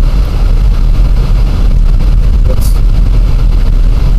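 Steady low rumble of a car's engine and tyres heard from inside the cabin while driving on a snowy road, with a brief hiss about two and a half seconds in.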